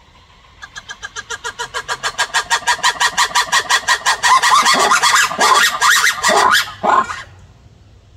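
Black-and-white ruffed lemur giving its loud call: a rapid run of harsh barking pulses, about seven a second, that grows louder over a few seconds and then breaks into a handful of loudest, longer shrieks before stopping suddenly.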